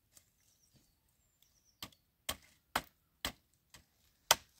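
Dry firewood sticks knocking sharply against one another as a bundle of sticks is packed and handled, about six clacks roughly half a second apart, the last the loudest.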